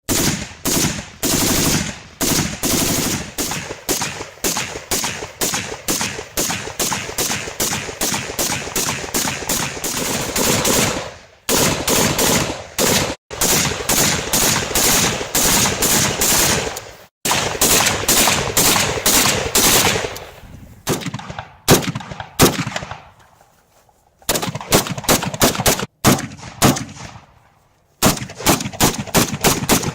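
Automatic rifle firing on full auto in long, rapid strings of shots, with a few brief pauses. About twenty seconds in the fire breaks up into shorter bursts and scattered shots, then long rapid strings resume near the end.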